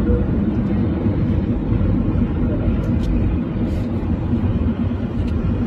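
Steady low rumble of aircraft engines at an air show, loud and continuous, with a faint held tone joining in over the last couple of seconds.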